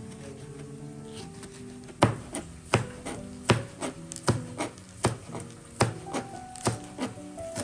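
Chef's knife slicing green onion on a plastic cutting board: a steady run of sharp knocks, starting about two seconds in, over soft background music.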